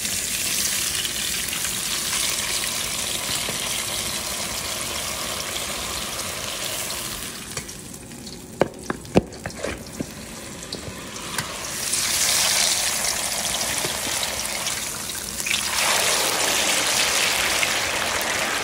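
Cut potatoes dropped into deep-fryer oil at 350 degrees, the oil sizzling and bubbling loudly. The sizzle eases for a few seconds in the middle, with several sharp clinks, then swells again as more potatoes go in.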